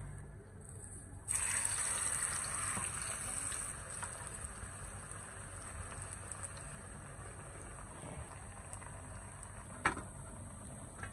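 Sliced ripe plantain hitting hot oil in a frying pan: a loud sizzle starts suddenly and settles into a steady frying sizzle. A single sharp click comes near the end.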